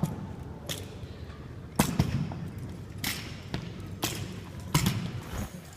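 A series of about eight sharp impacts, irregularly spaced, each dying away quickly.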